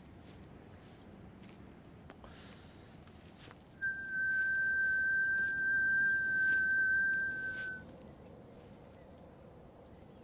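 A single steady, high-pitched pure tone, held for about four seconds, starting suddenly about four seconds in, over a faint background hiss.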